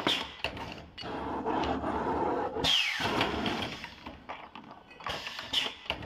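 Automated pneumatic machine pressing bearing inserts into cast-iron pillow block housings: a steady machine hum with scattered clicks and metallic knocks, and a brief falling whine about three seconds in.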